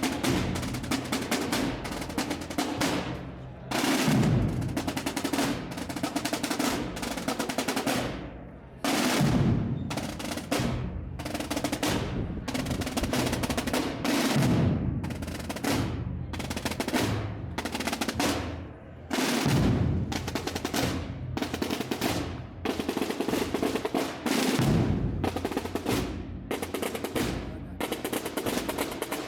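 Massed Holy Week drums of a tamborada playing together, a dense rolling beat of many rapid strikes with a loud surge about every five seconds.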